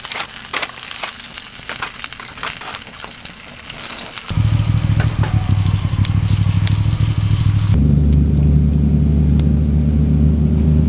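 Food sizzling and crackling in a hot pan, with many sharp pops. About four seconds in, a much louder low steady hum takes over and steps to a different pitch about eight seconds in.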